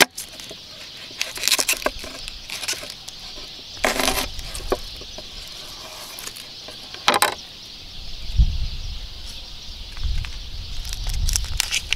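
Chef's knife cutting through an onion onto a wooden cutting board: a few separate sharp knocks of the blade hitting the board. Near the end, papery onion skin is rustled as it is peeled by hand, with a low rumble. A steady high hiss runs behind.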